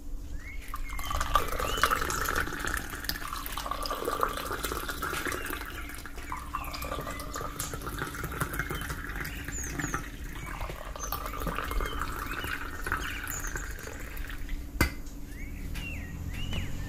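Hot mint tea poured from a metal Moroccan teapot into small glasses, a steady splashing stream with brief breaks as it moves from glass to glass. A single sharp click near the end.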